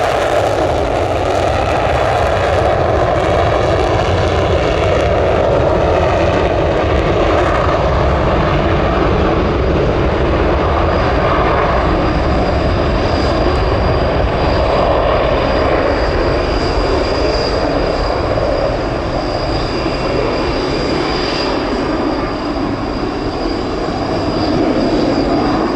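Panavia Tornado IDS jet departing, its twin RB199 turbofans making a loud, steady roar with a high, steady whine on top.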